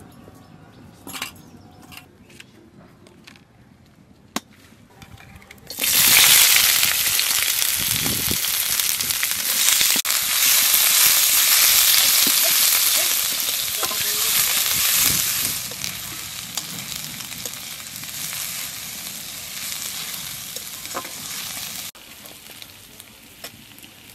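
Sliced red onions going into hot oil in a kadai (wok): a sudden loud sizzle starts about six seconds in. The onions fry and are stirred, and after about ten seconds the sizzle settles to a softer, steady frying hiss that drops away shortly before the end.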